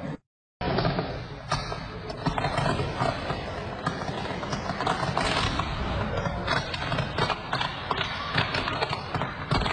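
Electrical wiring arcing and burning in a ceiling: a dense crackling with frequent sharp pops, after a moment of silence near the start.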